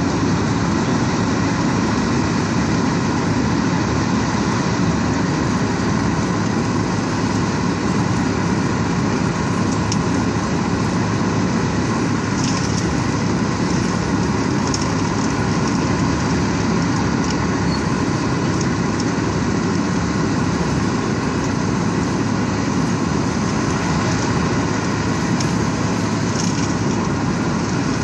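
Cold milling machine planing off old asphalt: the steady grind of the cutting drum and its diesel engine under load, with milled asphalt pouring off the conveyor into a MAN tipper truck whose engine runs alongside. The din stays even throughout, with occasional faint crackles.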